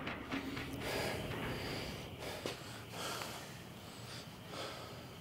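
A person breathing hard: a run of noisy breaths in and out.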